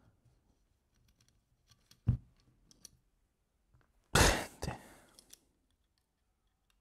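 Small clicks and taps from handling the Dye DSR paintball marker's trigger frame while its trigger is taken out, with a sharper click about two seconds in. About four seconds in comes a short rushing noise, the loudest sound, fading over about a second.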